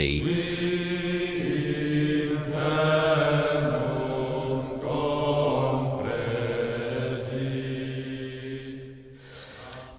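Plainchant sung by low male voices in unison: a slow melody of long held notes, fading away near the end.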